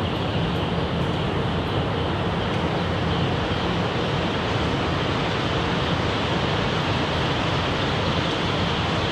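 Steady background noise of a poultry house full of young pullet chicks: ventilation fans running with a dense wash of chicks peeping.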